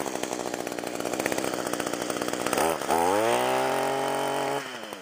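Echo two-stroke trimmer engine running at a low idle, then revved up sharply about two and a half seconds in, held at high speed for under two seconds and let back down to idle. The owner thinks it is running only on the primer and needs a carburettor rebuild.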